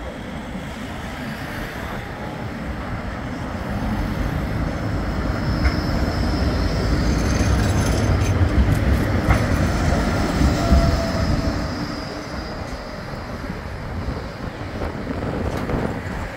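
Bombardier Flexity 2 light-rail tram running past close by on street track. Its rumble swells to a peak about halfway through and then fades, with a faint high whine as it passes.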